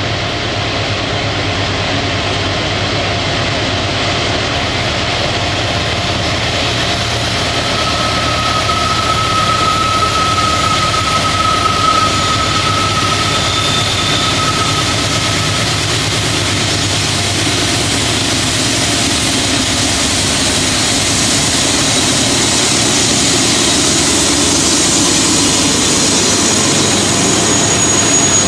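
Diesel locomotives at the head of a freight train approaching and passing, their engines running steadily and growing louder as the lead unit draws alongside. A thin high steady tone sounds for several seconds midway.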